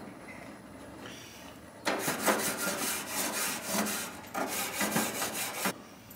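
Gas grill grates being scraped with a grill brush: rough back-and-forth scraping strokes that start about two seconds in and last about four seconds.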